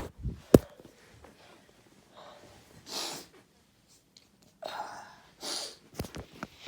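A person sneezing loudly: one sharp, explosive sneeze about half a second in, followed by several shorter breathy bursts a few seconds later.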